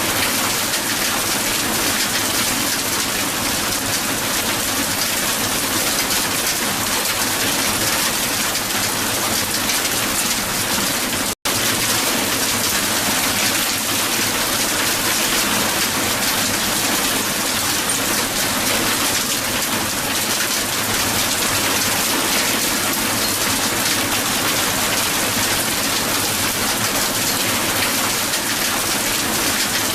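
Hail falling hard on the ground: a dense, steady patter of ice pellets striking the surface. It cuts out for an instant about eleven seconds in, then resumes unchanged.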